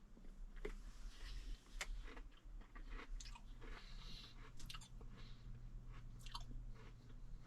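Faint close-up chewing of a crunchy Oreo sandwich cookie: irregular crunches and mouth noises.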